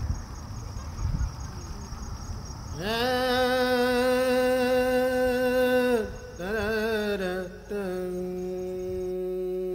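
Steady high insect trilling, then about three seconds in a voice begins a wordless chant-like song of long held notes over the soundtrack, with a short wavering phrase in the middle before settling on a lower held note.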